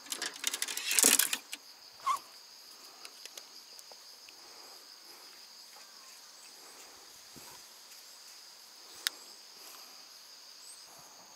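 Insects chirring steadily in an even high drone. In the first second or so it is covered by a loud clatter of fishing rods being pulled from the boat's rod rack, and a single sharp click comes near the end.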